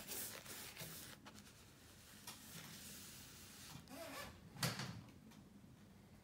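Paintbrush bristles brushing wet paint along a wall edge, soft swishing strokes, with a single sharper knock about four and a half seconds in.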